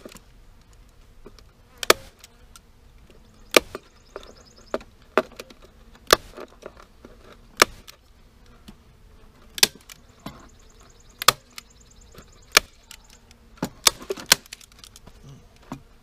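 Heavy-duty hand staple gun firing 5/16-inch staples into a wooden beehive to fasten window screen over the entrance: a sharp snap every one to two seconds, about ten in all. Faint buzzing of the honeybees shut inside the hive runs underneath.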